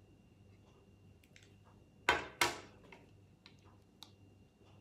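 Cooked crab shell cracking as it is pulled apart by hand: two sharp cracks about a third of a second apart, roughly two seconds in, with a few lighter shell clicks around them.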